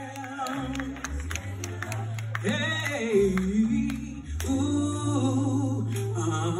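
A woman singing a solo into a microphone over amplified backing music with a steady bass line. Her voice comes in about two and a half seconds in with a swooping note, then holds notes with vibrato.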